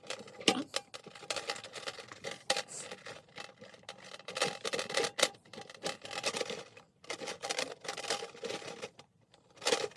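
Irregular clicking and rattling of snare drum hardware being handled, with metal tension rods and lugs knocking as the drum is worked on.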